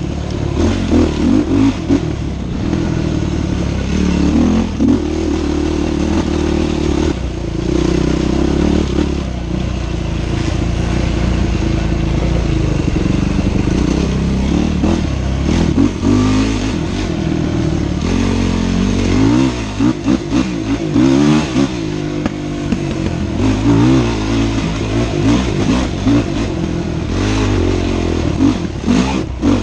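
Yamaha dirt bike engine revving hard on a trail ride, its pitch rising and falling again and again as the throttle opens and closes, with occasional knocks over bumps.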